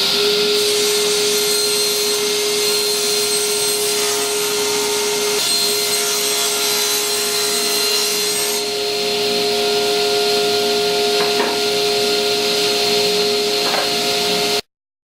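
Table saw running with a steady hum while its blade cuts through half-inch Baltic birch plywood; the sound cuts off suddenly near the end.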